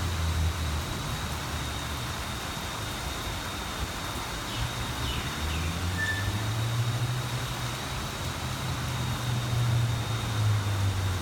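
Steady hiss of falling rain, with the low hum of a motor vehicle engine growing louder from about halfway through. A few faint chirps come just before the middle.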